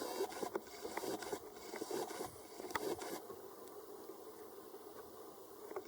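Light clicks and rattles of .22 rimfire cartridges being handled and pressed into a pistol magazine, bunched in the first few seconds and then quieter.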